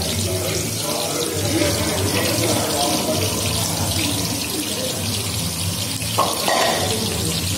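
Sliced onions frying in hot oil in a large iron kadai, a steady sizzle.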